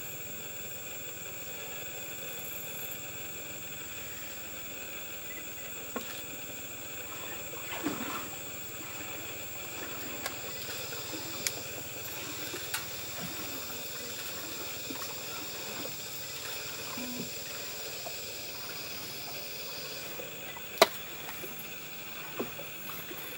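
Steady insect chorus: several continuous high-pitched drones at different pitches, one of the highest dropping out about three-quarters of the way through. A few sharp clicks are scattered through it, the loudest near the end.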